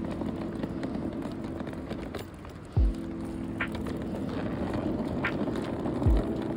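Background music: a low sustained chord with a deep bass hit that drops in pitch, heard twice.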